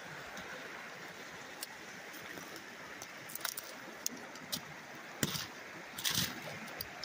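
Shallow mountain river running over rocks at low summer flow, a steady rushing hiss. From about three seconds in, irregular sharp clicks and rustles close by, loudest around five and six seconds in.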